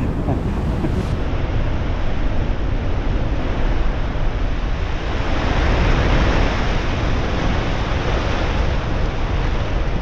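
Big storm surf breaking and rushing ashore, heavy and continuous, with wind rumbling on the microphone. The rushing swells louder about five to eight seconds in as a wave washes through.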